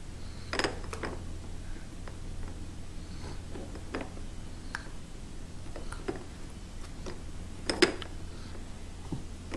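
Scattered clicks and knocks of plastic toys on a baby's activity saucer being grabbed and moved, with one louder knock near the end, over a steady low hum.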